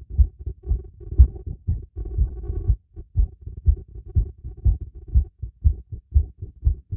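Human heartbeat heard through a stethoscope: fast, regular deep thumps, about two a second, raised by light exercise.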